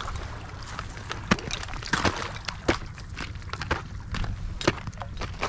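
Thin sheets of skim ice cracking and clinking as they are broken off and around a floating duck decoy in shallow water: a run of sharp, irregular cracks and ticks over a low rumble.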